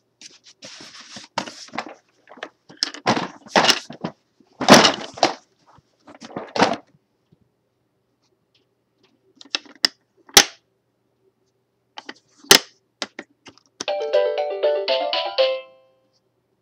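Chicco baby walker's electronic activity tray making its sounds: a string of short noisy bursts, two sharp clicks, then a short electronic tune of stepping notes a little before the end.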